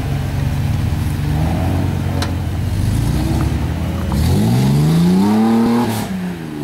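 Mercedes 4x4's engine pulling hard at steady low revs as it climbs a muddy, stepped slope, then revving up about four seconds in. The engine note rises, dips briefly near the end, and rises again.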